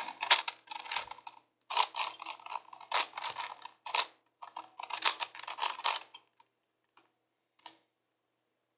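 Plastic 5x5x5 Rubik's cube being twisted by hand: quick runs of clicking and clacking as the layers turn, stopping about six seconds in, with two faint single clicks after.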